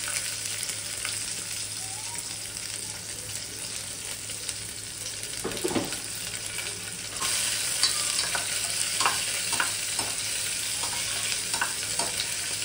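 Sliced onions sizzling in hot oil with tempered cumin and mustard seeds in a stainless steel pressure cooker. About seven seconds in the sizzle grows louder and a spatula starts stirring, with short scraping clicks against the steel pot.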